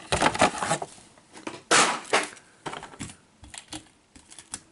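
Irregular clicks and crackles of a clear plastic blister pack and a 1:64 diecast toy monster truck being handled and set down, the loudest a single sharp click a little under two seconds in, then fainter ticks.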